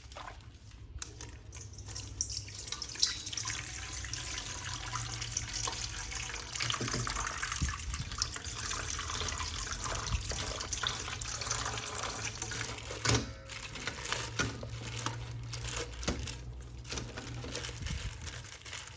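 Water running steadily from a tap and splashing into a sink, starting about a second in.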